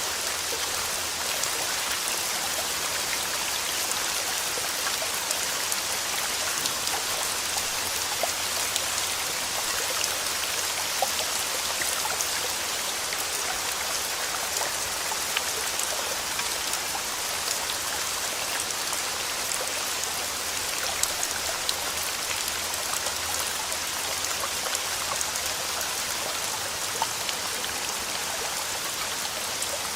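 Steady rain falling and pattering on a surface, with many small drop ticks, and no thunder.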